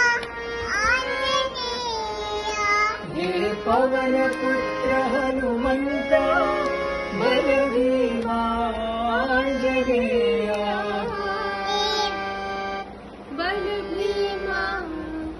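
A small girl singing a melody in a Carnatic style, with sliding, bending notes and some long held notes, pausing briefly near the end.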